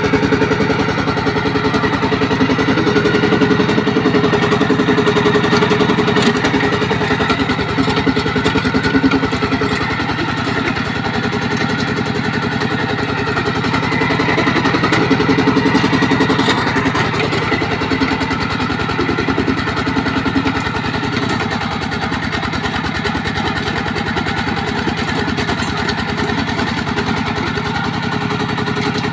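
Two-wheel walking tractor's single-cylinder diesel engine running steadily with an even firing beat as it works through scrub, its level swelling and easing a little as the load changes.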